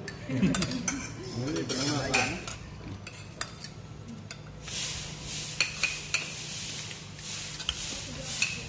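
Metal forks and spoons clinking and scraping against plates and bowls as people eat. A steady scraping starts about halfway through, with sharp clinks now and then.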